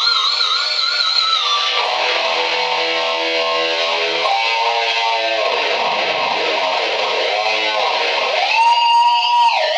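Dimebag Dixie Rebel electric guitar played through distortion and effects for noise: warbling high notes with wide vibrato, then a run of stepped notes, and near the end swooping dives in pitch.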